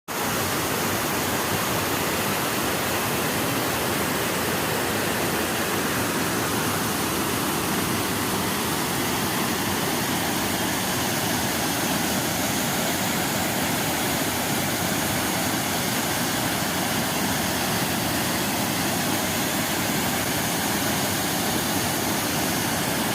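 Jamjir Waterfall pouring: a steady, unbroken rush of falling water.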